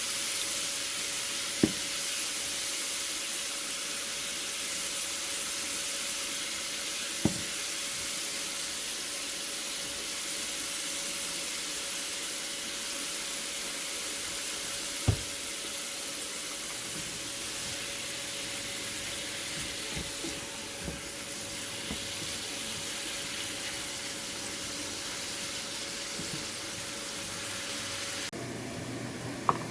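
Stir-fry sizzling steadily in a hot pan, with a steady hum underneath. A few sharp knocks come several seconds apart.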